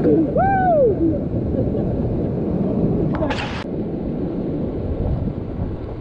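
Whitewater rapids churning loudly around an inflatable raft. A person gives one rising-and-falling yell near the start, and a short sharp hiss of spray comes about three seconds in.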